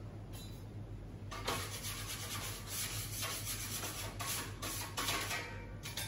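A series of rubbing, scraping strokes, about one a second, beginning about a second and a half in, over a low steady hum.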